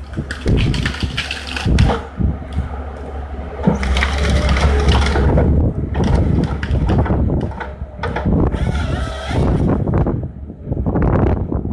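Wheeled forestry harvester processing a felled noble fir: its diesel engine runs steadily under load while the harvester head feeds the stem through, snapping and crackling off branches in irregular bursts.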